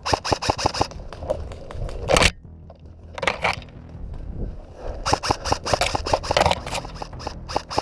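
Airsoft rifle firing in several short bursts of rapid clicking shots, with rustling between them.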